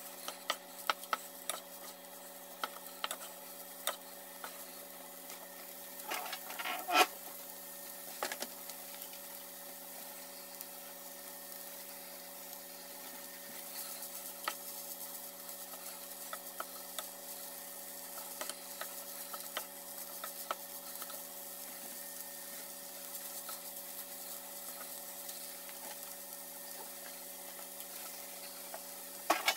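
Fried rice sizzling in a nonstick frying pan while a wooden spatula stirs and scrapes it, with scattered taps against the pan. There is a louder bout of scraping about seven seconds in.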